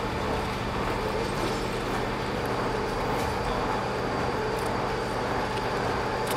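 A steady mechanical drone, like a nearby engine or machine running, holding an even hum over street background noise.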